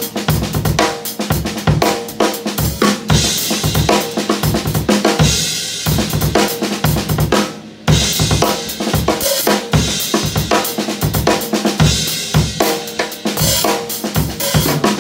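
Acoustic drum kit played in a groove: snare drum, bass drum and hi-hat cymbals, with a short drop in level about halfway through.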